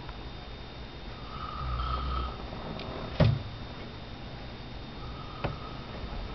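A sleeping person snoring: a low, rasping snore about two seconds in and a fainter one near the end. A sharp click a little after three seconds is the loudest sound, with a smaller click later.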